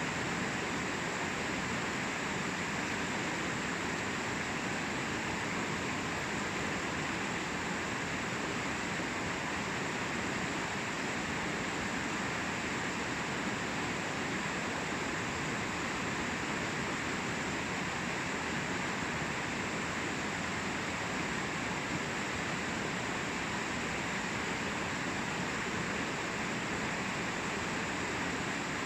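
Flowing river water: a steady rushing hiss that holds the same throughout.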